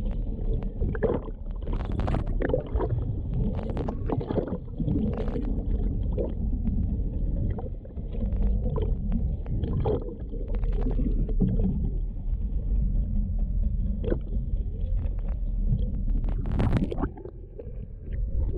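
Muffled underwater sound from a camera in a waterproof housing: water churning and rushing around it, with repeated sharp splashes and knocks as a hooked fish thrashes at the surface. The sound drops briefly shortly before the end.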